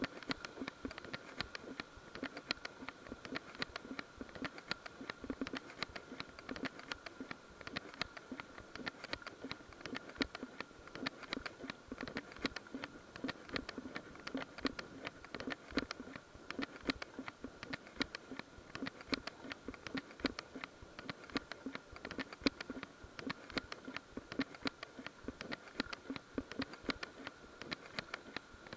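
Fast, irregular ticking and rattling that runs on without a break, over a faint steady high whine.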